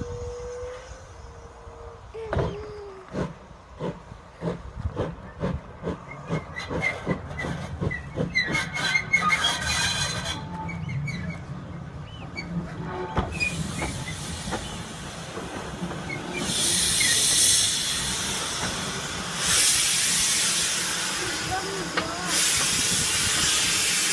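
Steam locomotive passing close by, working steadily with a regular chuff about twice a second and clanking on the rails. From a little past halfway it gives way to loud hissing steam that surges several times.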